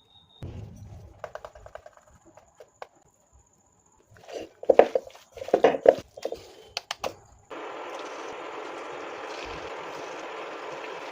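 Kitchen preparation sounds: scattered light clicks and knocks, then a few louder clunks, then a steady even hiss that starts suddenly about seven seconds in.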